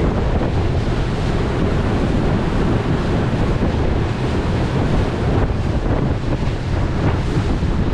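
Steady wind buffeting the microphone on a boat under way, over the rush of water.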